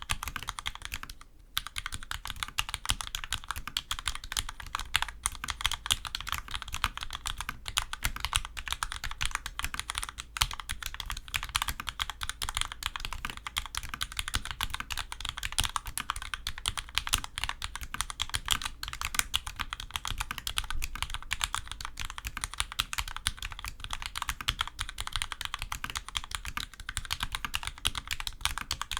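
Continuous fast typing on a mechanical keyboard with vintage Cherry MX Black linear switches under low-profile doubleshot keycaps, a dense run of key clacks with a brief pause about a second in.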